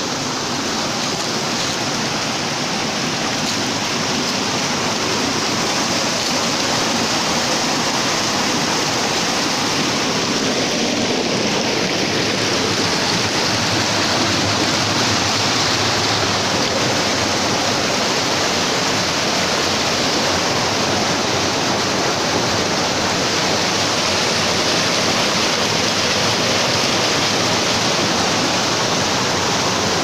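Fast forest stream rushing and splashing over rocks: a loud, steady water noise that grows a little louder over the first several seconds.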